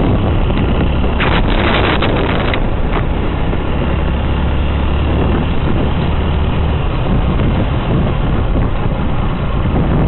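Motorcycle riding at a steady cruise: a low engine hum mixed with wind rushing over the microphone, with a stronger gust of wind about a second in.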